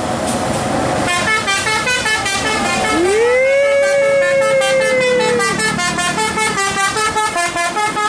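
Bus telolet horn playing a quick tune of short stepped notes, starting about a second in, with one long note in the middle that slides up and holds for a couple of seconds; a passing bus's engine runs underneath.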